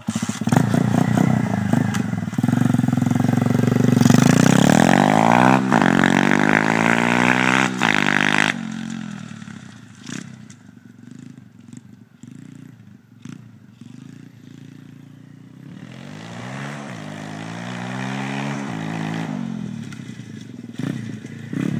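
Welsh Pit Bike 125's engine running loud close by and revving up and down as the bike pulls away. About eight seconds in it drops away with distance, then grows louder again near the end, still revving up and down.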